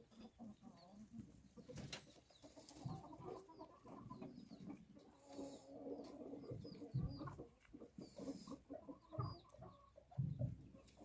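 A flock of chickens clucking softly, with small high chirps among them. A few dull thumps about seven seconds in and near the end.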